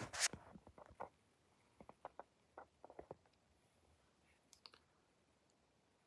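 A brief louder knock at the very start, then faint, scattered light clicks and taps in small clusters, dying away about five seconds in.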